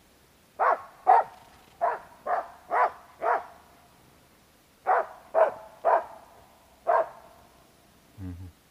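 Hunting dog barking up a tree at a squirrel, marking where the squirrel is: ten barks in two runs of about two a second, with a pause about four seconds in.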